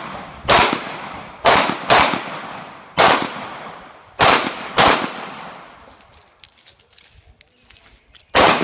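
Series of gunshots from a pistol or shotgun being fired at targets: six shots in fairly quick, uneven succession over the first five seconds, then a pause and one more shot near the end. Each shot is followed by a ringing echo that fades away.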